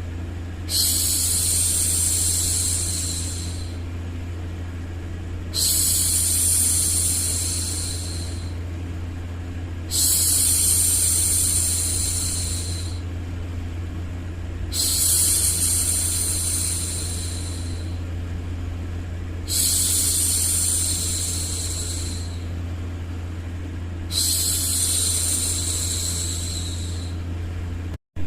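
A woman's voice shushing a baby, "shhh", six times. Each shush lasts about three seconds and they come about every five seconds, each starting suddenly and fading out. Under them runs a steady low white-noise hum, with a brief cut-out near the end.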